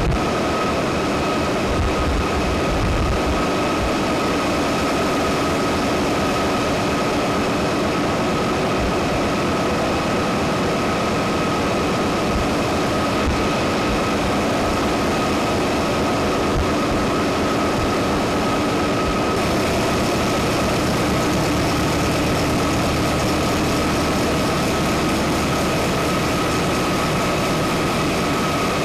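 Power station generating machinery running, a loud steady drone with a constant high whine held over it.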